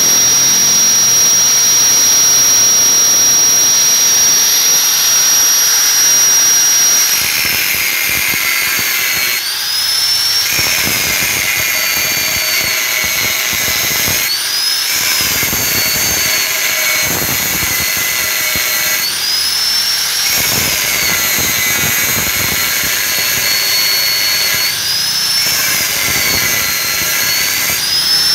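Angle grinder with an abrasive disc running free at full speed with a steady high whine. About seven seconds in, the disc starts cutting into a chrome-plated steel motorcycle muffler: under load the whine drops in pitch with a grinding hiss, and it swings back up each time the disc is eased off, roughly every five seconds.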